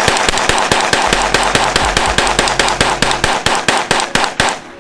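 Semi-automatic rifle fired in a rapid string of shots, several a second, at steel plate targets; the firing stops about four and a half seconds in.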